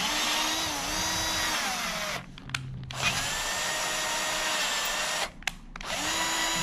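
Compact cordless drill on low torque, driving a tap through a threaded hole in a steel strut bracket to chase the threads clean. It whines in three runs with short stops between, about two seconds and five seconds in. The pitch sags briefly in the first run.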